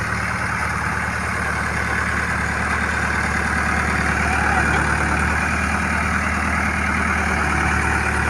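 The diesel engine of a 30-ton excavator idling steadily.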